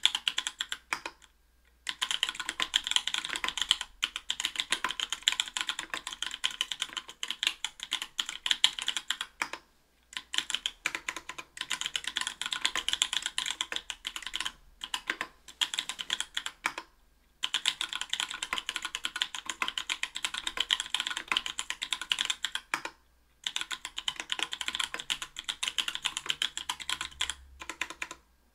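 Fast typing on an Octagon V3 mechanical keyboard with stock, unlubed NK_ Blueberry 80 g tactile switches in an aluminium plate under GMK keycaps: a dense clatter of keystrokes, broken by short pauses about every five to seven seconds.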